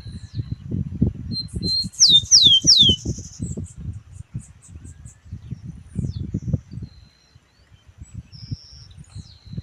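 Rufous-collared sparrow (tico-tico) singing: high whistled notes, then three loud descending slurred whistles about two seconds in, followed by a short trill of clipped notes. It starts the next song near the end. Low irregular rumbling runs underneath.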